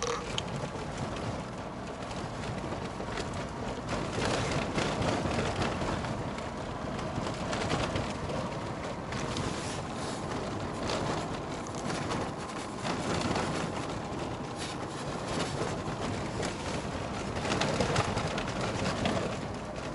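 Inside-the-cabin noise of a Niva driving over snow-covered sea ice: a steady rush of engine and tyres on packed snow, with frequent knocks and rattles from bumps, louder twice, about four seconds in and again near the end.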